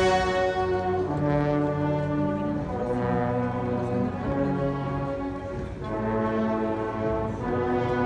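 Cornetas y tambores band (bugles and drums) playing a slow Holy Week processional march, the bugles holding long notes that change every second or so.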